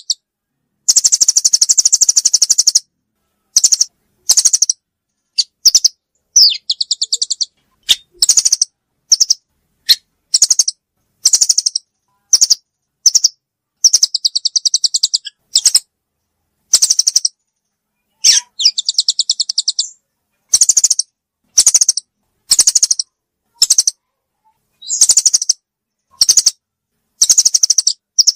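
Forest birds calling in rapid, high-pitched chirping trills, in bursts from a fraction of a second to about two seconds long with dead silence between them, as played from a bird-lure recording.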